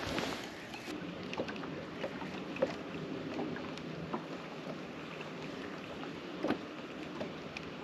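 Small waves lapping against the hull of a boat sitting on the water, with light wind, and a few faint, scattered clicks and knocks.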